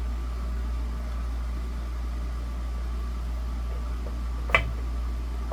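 One sharp knock about four and a half seconds in, from the parts of a disassembled desk fan being handled, over a steady low hum.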